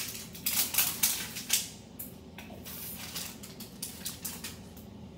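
Plastic wrapping crinkling and crackling as a toy capsule is unwrapped by hand, with a dense run of sharp crackles over the first two seconds and fainter ones after.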